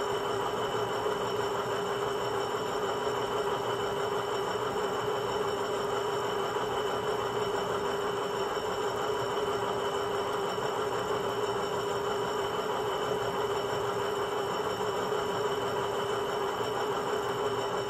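Diesel-locomotive sound from a Loksound 5 DCC decoder, played through the small speaker of an HO scale WDG4 model running on rollers: a steady drone with a held hum that does not change.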